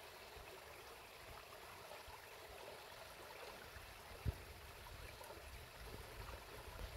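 Faint, steady wash of a muddy river flowing past the bank, with a single soft low thump about four seconds in.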